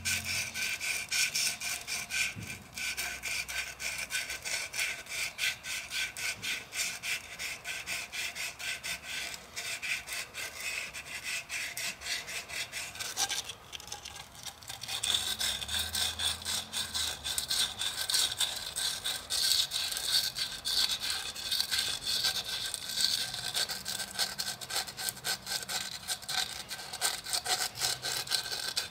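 Fine-grit emery cloth rubbed by hand inside a steel collet bore in quick, continuous back-and-forth scratchy strokes, sanding away buildup on its low side to cut the collet's run-out.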